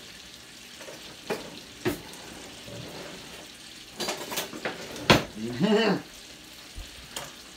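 Metal utensils clinking and scraping against plates and a cutting board as sautéed steak is plated: a handful of sharp clicks, spaced irregularly, over a faint steady sizzle from the pan.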